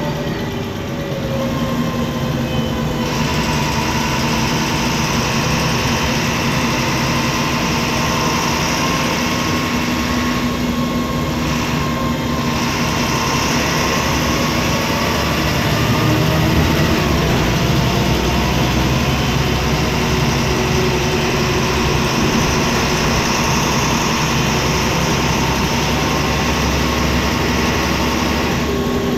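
MAN D0826 LOH straight-six turbodiesel of a MAN Lion's Classic city bus, heard from inside the cabin, running steadily and noisily as the bus drives. The engine note falls in pitch in the first couple of seconds, and a steady hiss sets in a few seconds later, dips for a couple of seconds midway and drops away near the end.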